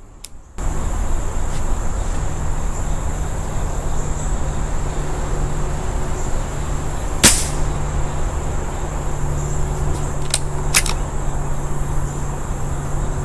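A Beeman R7 break-barrel spring-piston air rifle fires a single sharp shot about seven seconds in. Two quicker sharp clicks come about three seconds later. A steady thin insect trill and a low rumbling hiss run underneath.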